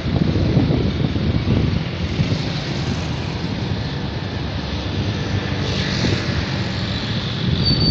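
Steady rumble of traffic on a busy main road, with wind buffeting the phone's microphone.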